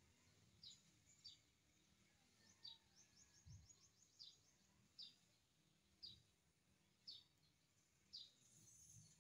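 Faint bird calls: a short, high, falling chirp repeated about once a second, with a quick run of short chirps about three seconds in.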